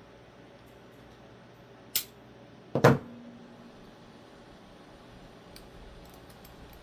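Two sharp knocks about a second apart, the second louder with a short ring, then a few faint clicks near the end: small metal knife parts or tools being handled and set down on a hard work surface during a folding-knife teardown.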